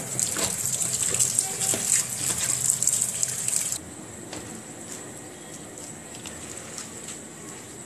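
Tap water running onto grated daikon radish in a plastic colander in a steel sink while hands squeeze and rinse the shreds. The water stops abruptly about four seconds in, leaving only faint handling sounds of the wet radish.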